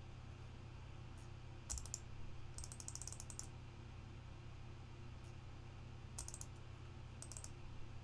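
Computer keyboard and mouse clicks in short clusters: a click about two seconds in, a quick run of keystrokes around three seconds, and two more short clusters near the end, faint over a steady low hum.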